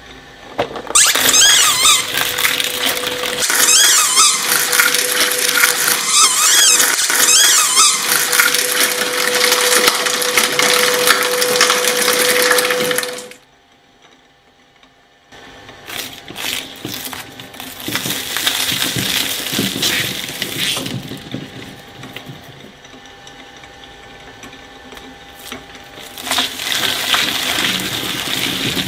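Twin-shaft shredder's steel cutter discs crushing spiky rubber puffer balls: dense grinding with high squeals and a steady whine for about twelve seconds. After a short break it crunches more unevenly through a head of broccoli, then a cauliflower near the end.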